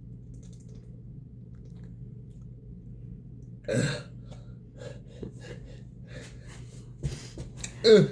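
Two short throaty grunts from a man in pain from a Carolina Reaper chicken tender: a burp-like one about a third of the way in and one with falling pitch near the end, with a few faint clicks between, over a low room hum.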